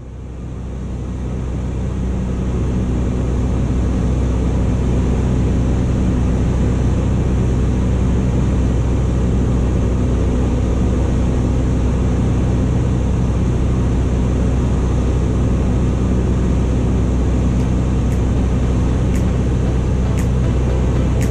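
Cessna 172's piston engine and propeller droning steadily at cruise, heard from inside the cabin, fading in over the first few seconds.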